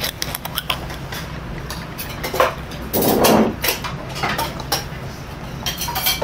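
Green glass soju bottle having its cap twisted open, then soju poured into a small shot glass about three seconds in, with clinks and knocks of glass and dishes on the table as the glass is drunk from and set back down.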